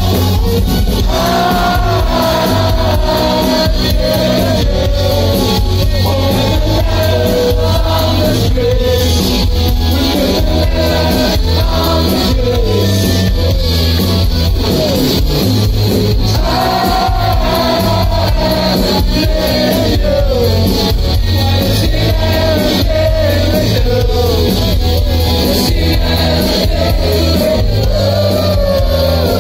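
Live rock band playing loudly with a lead singer's vocals over electric guitars, keyboards and drums, heard from within the audience.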